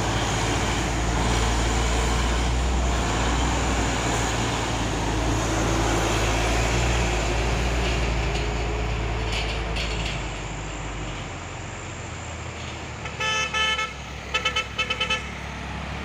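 A heavy tandem-axle cargo truck's diesel engine pulls uphill with a deep rumble, fading about eleven seconds in as the truck moves off. Near the end a multi-tone truck horn sounds for about a second, then gives about five quick toots.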